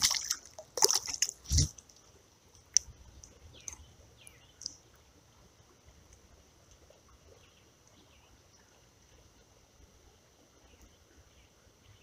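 Water splashing a few times as a caught bluegill is brought in over the creek. Then mostly quiet, with faint clicks and small handling sounds over a steady soft hiss as the hook is worked out of the fish's lip.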